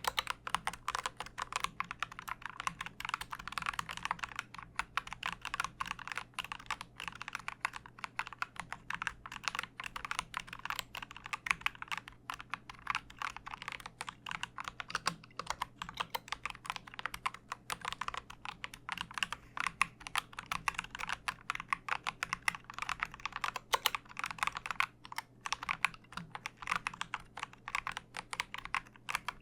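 Typing on a Dark Project KD87A mechanical keyboard: a fast, continuous run of key clicks.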